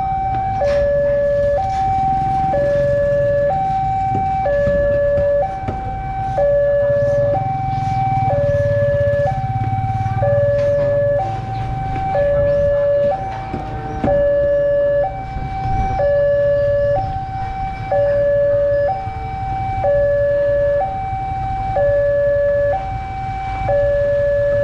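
Electronic two-tone alarm of a railway level crossing, stepping steadily between a higher and a lower tone about once a second. Under it, motorcycle engines rumble past on the crossing.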